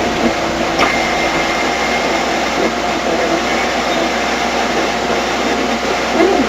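Ghost box, a radio sweeping through stations, giving a steady rush of radio static with faint tones in it and a short click about a second in.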